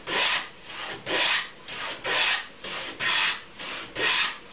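A 170-year-old plow plane shaving wood as it cuts a groove along a board's edge, in a steady rhythm of about one loud rasping cutting stroke a second, each followed by a softer one. The depth stop has not yet bottomed out, so the plane is still cutting.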